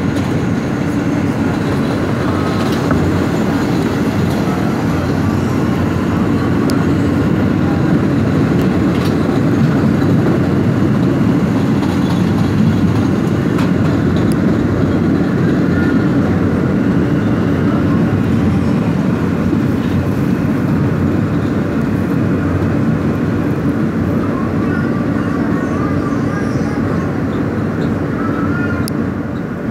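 R160 subway train running at speed, heard from inside the car: a steady rumble of wheels on rail, with another subway train running close alongside. Faint wavering squeals come and go in the second half.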